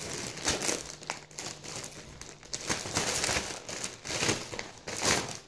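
Plastic packaging bag crinkling and rustling as it is handled, in irregular bursts with several louder crackles.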